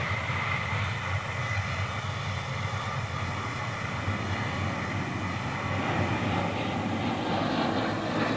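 Jet airliner engines running steadily on the ground: an even rushing noise with a thin high whine over it that fades after two or three seconds.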